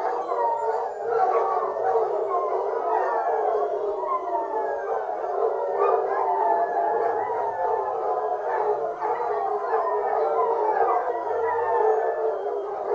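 A pack of foxhounds giving tongue together, many voices howling and baying at once in an unbroken chorus of overlapping, mostly falling cries.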